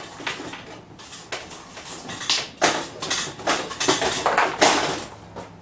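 Irregular rattling and rustling as a small electric popcorn popper is handled and tipped to dump its popcorn, which is stuck inside. The bursts come thickest in the second half.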